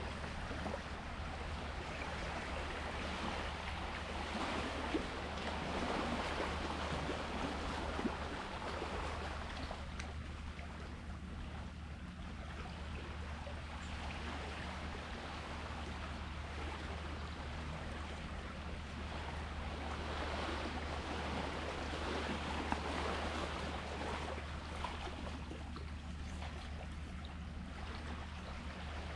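Sea waves washing in and draining away, the rush of water swelling and fading slowly, twice, with a few faint clicks. A steady low hum runs underneath.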